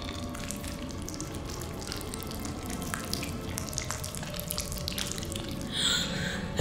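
Horror-film sound design of water dripping and splashing in a toilet bowl as creature tentacles rise out of it, many short wet ticks over a steady low rumble. A brighter, higher sound swells in near the end.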